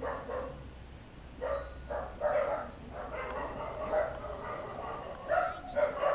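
Dogs barking and yelping, a series of short separate calls.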